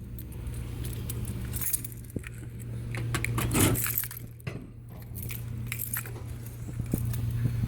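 Large metal tool box drawer being opened, with the heavy tools inside clinking and rattling. A steady low hum runs underneath.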